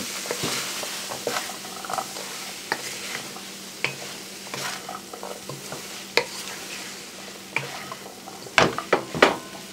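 Wooden spoon stirring chickpeas and mushrooms in a metal pot over a steady frying sizzle, with scattered scrapes and clacks of the spoon against the pot and a cluster of louder knocks near the end.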